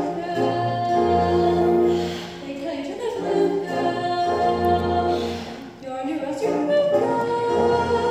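Show choir singing: a solo voice on a microphone over held choral notes and instrumental accompaniment with a low bass line that changes note every couple of seconds.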